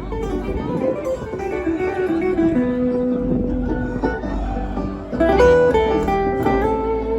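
Acoustic bluegrass string band playing live: picked guitar and banjo under held, sliding fiddle notes.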